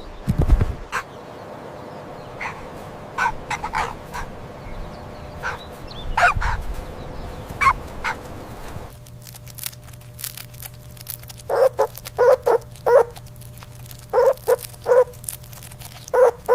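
Short animal calls, repeated in two runs: scattered higher calls through the first half, then a run of lower, quick calls over a steady low hum from about nine seconds in.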